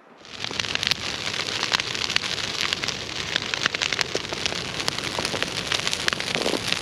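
Brush pile burning: a steady rushing of flames, thick with sharp crackles and pops.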